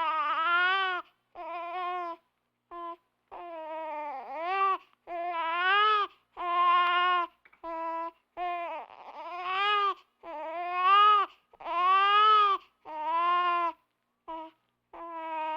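Baby crying in a string of short wails, roughly one a second, each rising and falling in pitch, with brief silent gaps between them.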